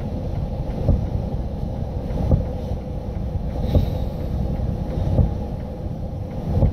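Steady low rumble of a running vehicle, with a soft thump about every second and a half.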